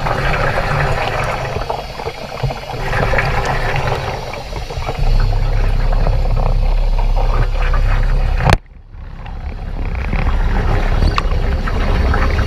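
Underwater recording of air bubbles streaming and gurgling from air-fed diving helmets over a steady low rumble. About eight and a half seconds in there is a sharp knock, and the sound dips for about a second before returning.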